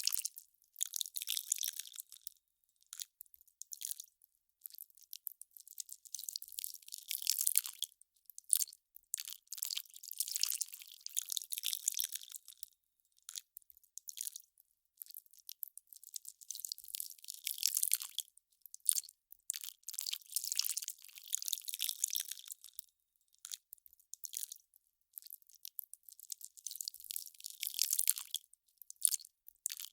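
Ice crackling and popping as it melts: dense, irregular high crackles that swell and fade in clusters every few seconds.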